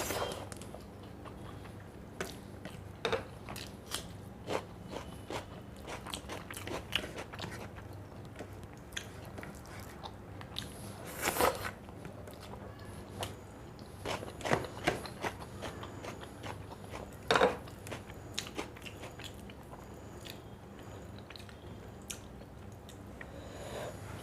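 A person biting and chewing crunchy fried food close to the microphone: irregular crisp crunches and small mouth clicks, with a few louder crunches about 11 and 17 seconds in.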